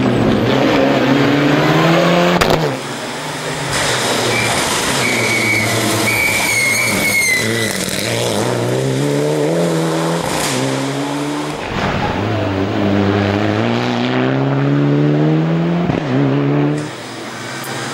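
Mitsubishi Lancer Evo IX rally car's turbocharged four-cylinder engine at full throttle, the note climbing in pitch and dropping back at each upshift, over and over. A tyre squeal wavers through the middle as the car takes a tight bend.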